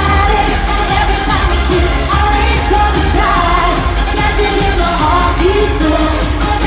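Live eurodance pop played loud through a club PA: singing over a heavy, steady bass.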